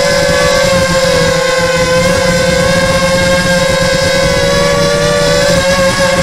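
Small motor whining steadily as the low vehicle moves along, a high hum with a row of overtones over a rough rumble, its pitch wavering slightly about five seconds in.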